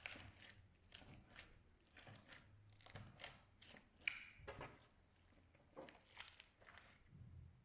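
Slime being pressed and squeezed by hand: quiet, irregular sticky clicks and crackles, two or three a second, with a slightly louder pop about four seconds in.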